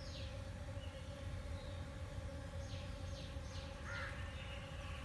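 Steady drone of many honeybees buzzing, with a bird calling in short falling chirps: one at the start and a quick run of four about two and a half seconds in.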